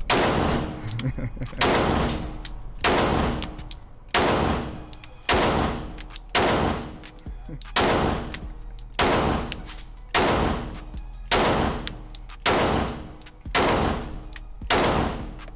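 Handgun fired in slow, steady succession: about thirteen shots a little over a second apart, each ringing briefly before the next.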